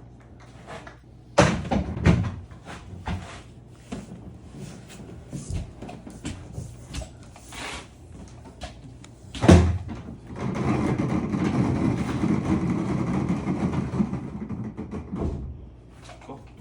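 A wooden cabinet knocking and bumping as it is handled onto a small caster dolly, with a heavy thump about nine seconds in, then the dolly's casters rolling across the floor with a steady rumble for about five seconds.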